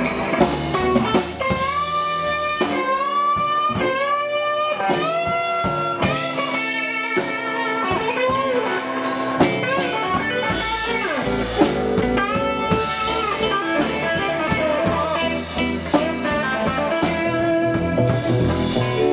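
Live blues band playing: electric guitar lead with bent notes over upright bass and a drum kit, with harmonica.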